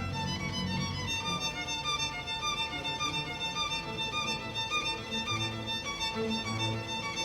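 Background music led by a violin, playing a melody over a bass line.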